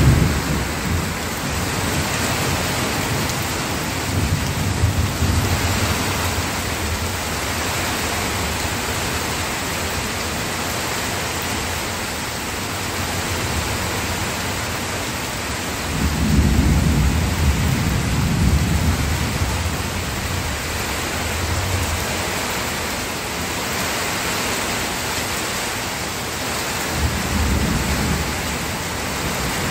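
Steady rain, with low rolls of thunder rumbling in and out: the strongest about halfway through and a shorter one near the end.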